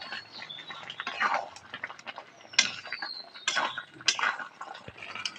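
Metal spatula scraping and clinking against a metal kadai while stirring a thick chicken curry: irregular scrapes, a few sharper ones about a second apart.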